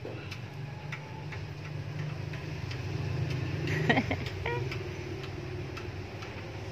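Light, irregular clicks and taps, a few a second, from a puppy's claws and teeth on a glass door, with a short flurry of louder taps about four seconds in. A low steady hum runs underneath.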